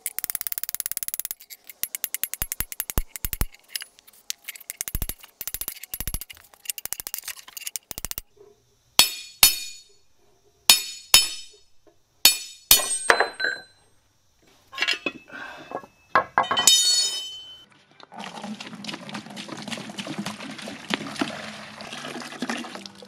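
Rapid metal-on-metal knocking and tapping, then about ten separate sharp strikes on steel that ring out, as a paint-coated rod is worked out through an opening in the mortiser's casting. In the last few seconds, liquid pours steadily from a plastic jug into a plastic bucket.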